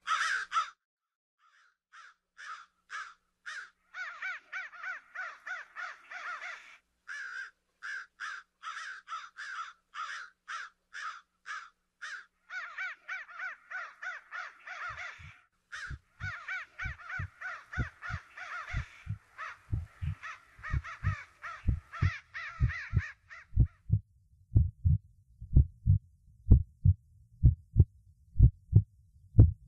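Crows cawing over and over in a quick run of calls, which stop about three-quarters of the way through. From about halfway a heartbeat sound effect starts beating steadily underneath, growing louder as the cawing fades out.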